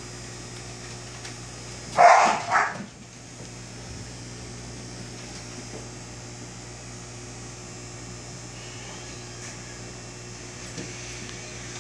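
Steady hum and fizzing hiss of an aquarium air pump and disc air stone bubbling. About two seconds in, two short, loud animal calls stand out above it.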